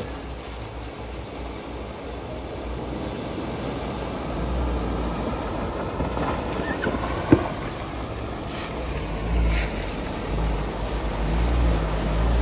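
Suzuki Jimny JB74 driving off-road: a low rumble with a rushing noise that grows louder from about four seconds in, and a single sharp knock about seven seconds in.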